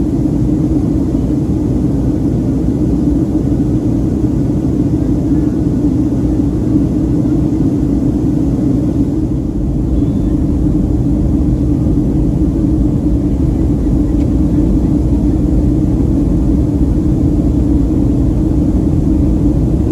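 Steady cabin noise of a Boeing 737-400 in flight, heard from a window seat over the wing: the drone of its CFM56-3 turbofan engines with the rush of air along the fuselage. It stays even, dipping only slightly for a moment near the middle.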